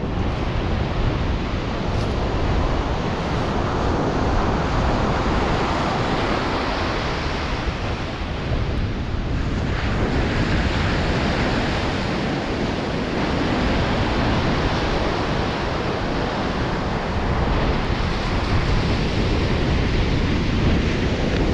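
Ocean surf breaking and washing up the beach, swelling and easing as each wave comes in, with wind rumbling on the microphone.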